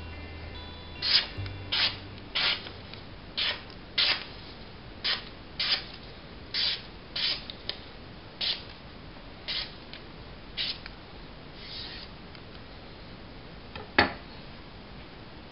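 A freshly sharpened kitchen knife slicing through a sheet of paper about a dozen times, each cut a short swish, the sharpness test after sharpening on the stone. About a second and a half before the end, a sharp knock as the knife is set down on the wooden table.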